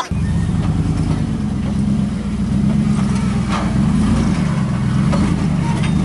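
Full-size Chevy 4x4 pickup's engine running steadily under load as the truck crawls up a rocky ledge, its pitch rising and falling a little with the throttle.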